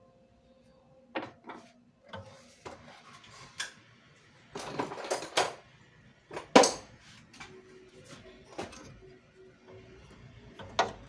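Irregular metallic clicks, knocks and clatters of hands and pliers working at the wire connection to a cup sealer's heating element, with a cluster of them around the middle and the loudest knock a little past halfway.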